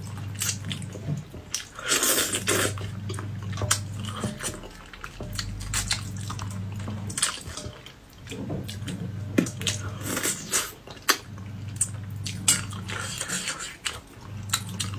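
Close-miked mouth sounds of a person eating spicy braised fish: wet chewing, smacking and slurping, with many short sharp clicks.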